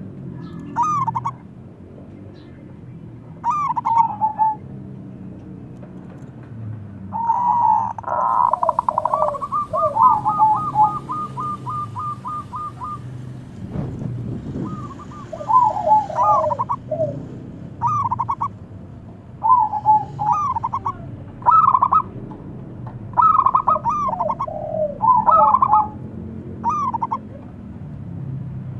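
Zebra dove (perkutut) calling: bursts of short, rolling coos repeated every second or two. About a third of the way through comes a longer run of quick, evenly spaced notes.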